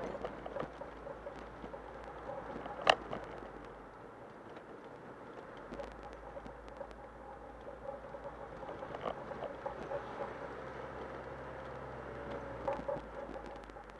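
Steady engine and road noise of a car driving, heard from inside the car, with one sharp loud click about three seconds in and a few lighter clicks later.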